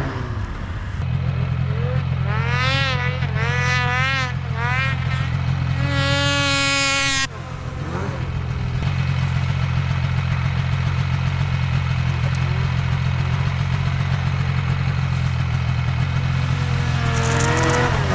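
Off-road vehicle engine running steadily under way, its pitch rising and falling over and over as the throttle is worked in the first seconds. The sound breaks off suddenly about seven seconds in, and a steady engine drone carries on after.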